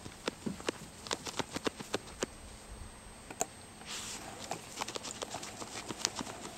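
Dachshund-mix dog digging at a mole hole, her claws scraping and clicking rapidly in dry dirt, several strokes a second. The digging pauses briefly near the middle and resumes in scattered scratches.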